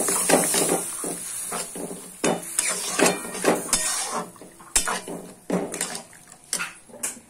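A spatula scraping and clinking against a metal kadai in irregular strokes as boiled peas are stirred into frying masala, over a faint sizzle.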